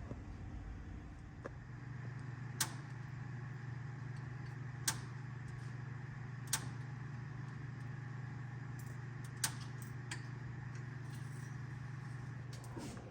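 A steady low hum starts about a second and a half in and runs on, with five sharp clicks or taps scattered over it.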